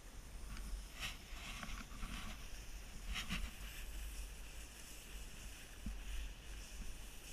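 Snowboard sliding over packed, tracked snow with a steady rush of wind on the microphone, and two louder scraping swells of the board's edge cutting the snow about one and three seconds in.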